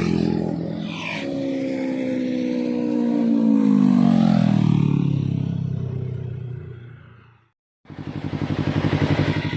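A 2020 Yamaha R3's parallel-twin engine through a gutted stock muffler (kalkal pipe) on a fly-by: the engine note swells to its loudest about four seconds in and drops in pitch as the bike passes and fades away. After a brief break, the engine runs at a steady, evenly pulsing idle.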